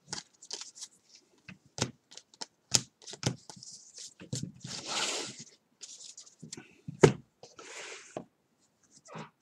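2018 Bowman baseball cards being handled: a stack of cards is flipped through by hand, with many quick card-edge clicks and snaps and a longer papery swish about halfway. A sharp tap about three-quarters of the way in is the loudest sound, followed by another brief swish.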